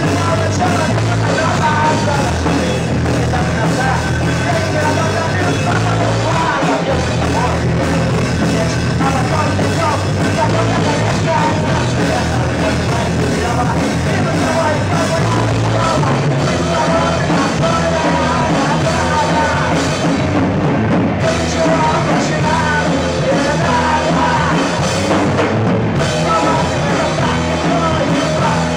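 A rock band playing live at full volume, with bass and drums under a wavering melody line.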